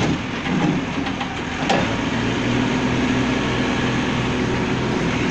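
Vehicle engine idling steadily, with a single short click about two seconds in.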